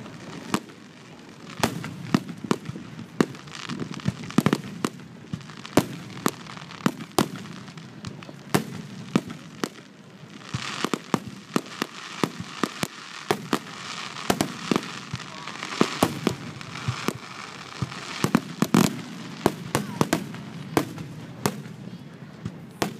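Fireworks display: aerial shells bursting in rapid, irregular bangs, often several a second, with a stretch of denser hiss in the middle.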